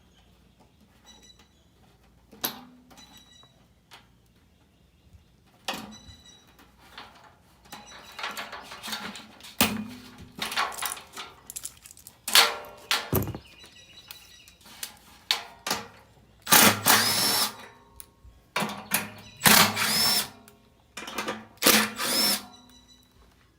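Cordless drill-driver run in three short bursts near the end, each with a rising whine as it spins up, while a furnace blower motor is being changed. Before that, knocks and clatter of tools and metal parts being handled.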